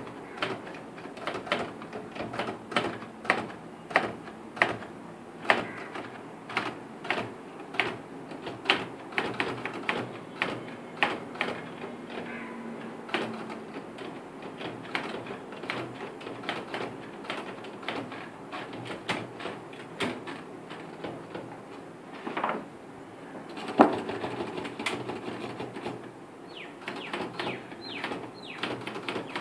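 Manual typewriter keys striking the platen one by one, irregular sharp clicks, about two a second for the first half and sparser after, with a louder single strike near the end.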